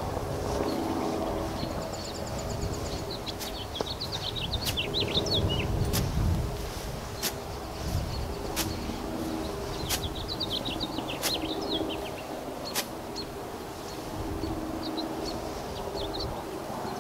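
Small birds chirping in short trills over the steady hum of a distant motor, with sharp ticks about every second and a half through the middle.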